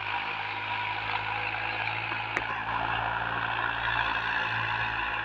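Massey Ferguson 7235 DI tractor's diesel engine running steadily under load while pulling a cultivator through the soil, with a single brief click about two seconds in.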